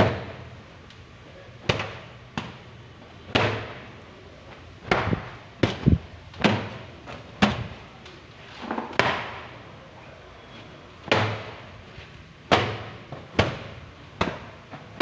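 An irregular series of sharp knocks or bangs, about one a second, each trailing off with a short echo.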